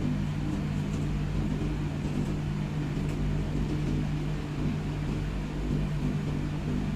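A steady low machine hum, even throughout.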